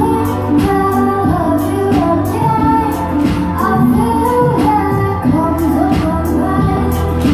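Live pop song: a female voice singing a gliding melody over instrumental accompaniment with a steady beat.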